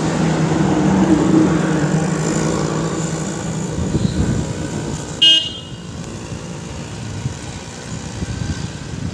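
A heavy truck's engine passing close, loudest about a second in and fading away. A vehicle horn gives one short toot about five seconds in, then lighter road traffic.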